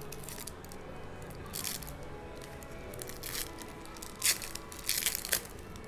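Foil wrapper of a trading card pack being torn open by hand: a few short rips and crinkles, about 1.7, 3.3 and 4.3 seconds in, then a louder cluster around 5 seconds.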